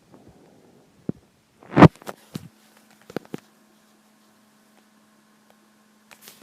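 Clicking in the throat: a run of short sharp clicks, the loudest about two seconds in, then a pause and two more near the end. A low steady hum begins about two seconds in and carries on underneath.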